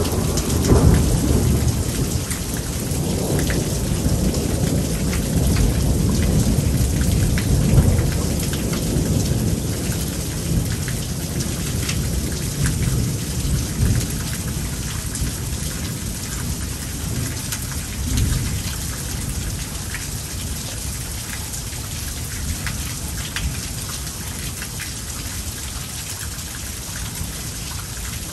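Heavy thunderstorm rain pouring steadily, with thunder rumbling through the first ten seconds or so. The rumble is loudest about a second in and again near eight seconds, swells once more more weakly around eighteen seconds, and then leaves mostly the rain.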